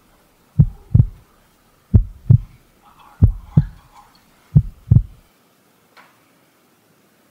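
Heartbeat sound effect: four pairs of deep lub-dub thumps, one pair about every 1.3 seconds, stopping about five seconds in.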